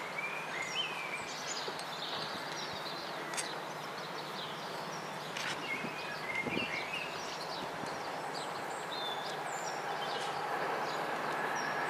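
Small birds chirping over a steady background hum. Near the end the sound of a distant approaching locomotive-hauled train slowly grows louder.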